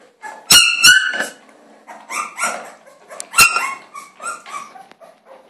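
Young puppy yelping in a string of short, high-pitched cries, the loudest about half a second in and again around three and a half seconds.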